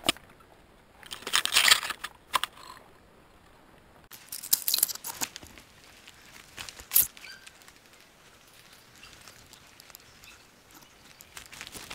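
Footsteps crunching through dry fallen leaves and brushing through twigs and undergrowth, in irregular bursts with a few sharp twig snaps.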